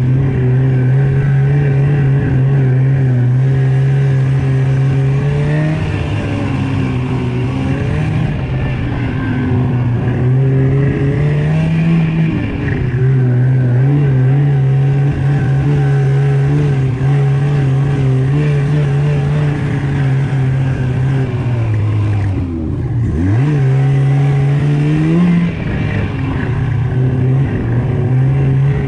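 Snowmobile engine running at speed under throttle. Its pitch holds steady, then dips and climbs back several times as the throttle eases and opens again, with a deeper drop and rise a little past twenty seconds in.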